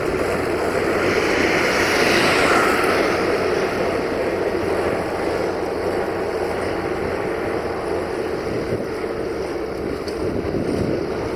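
Deutz-Fahr 6150 tractor's diesel engine running steadily under load as it pulls a scarifier through the soil, with a brief swell in the hiss about two seconds in.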